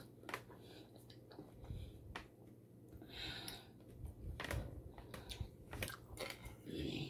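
Faint close-up chewing and mouth sounds of a person eating, with scattered light clicks of a metal fork against a plate and a couple of brief hissy breaths or slurps.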